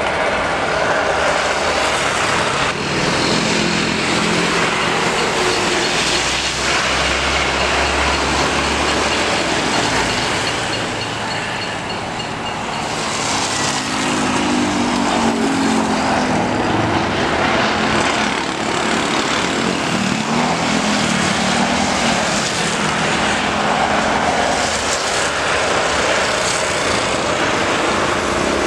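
Jet engines of a Boeing 737 airliner running loud and steady as it rolls along the runway, a continuous rushing roar with a lower pitched hum rising and falling in the middle.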